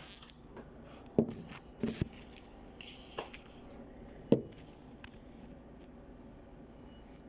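Kitchen handling sounds: a few knocks and clacks with light rustling and scraping in between, the sharpest knock about four seconds in.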